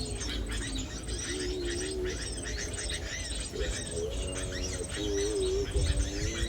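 Many small birds chirping rapidly in a dense chorus, with a lower, wavering cooing note repeating underneath in phrases of about a second.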